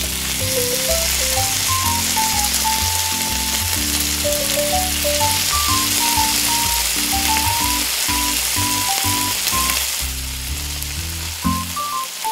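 Hot oil sizzling and bubbling steadily as small battered pieces deep-fry in a miniature steel wok, easing a little near the end. Light background music with a plucked melody plays throughout.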